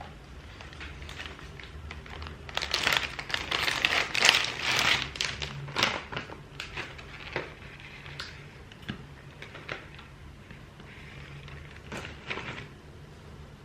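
Close handling noise: crinkling, rustling and light clicks and taps, busiest from about two and a half to six seconds in, then a few isolated clicks, over a faint steady low hum.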